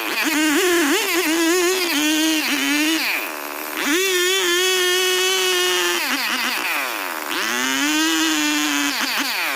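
Stihl 070 two-stroke chainsaw running at high revs with a wavering pitch. The revs drop and pick up again twice, about three seconds in and again about seven seconds in.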